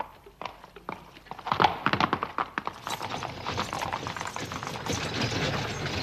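Horse hooves clip-clopping, sparse at first, then a dense, louder run of rapid hoofbeats from about a second and a half in.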